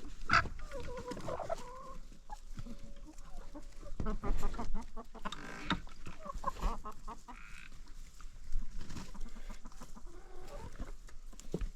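Chickens clucking, a series of separate short calls.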